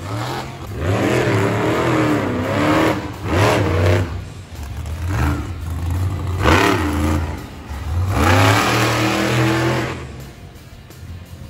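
Monster truck engine revving hard in a series of bursts, its pitch climbing and falling again and again, dropping back to a lower rumble near the end.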